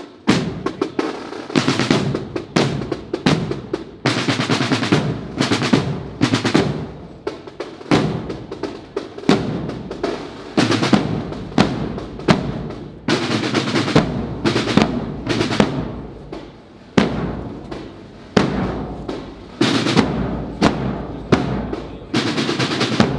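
Procession band's drum section, snare drums and bass drum, playing a march rhythm with repeated snare rolls.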